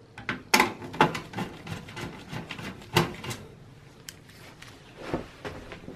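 Screwdriver turning out a motherboard mounting screw in a steel PC case: small clicks and scrapes of metal, with sharper clicks about half a second in, at one second and at three seconds.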